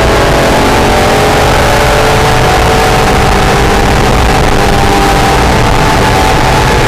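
Acura NSX's V6 engine running hard on track, heard loud under heavy wind and road noise. Its note dips slightly at first, then climbs steadily as the car accelerates through a gear.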